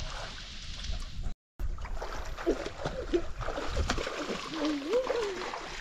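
River water splashing, with faint distant voices calling. The sound cuts out for a moment about a second and a half in.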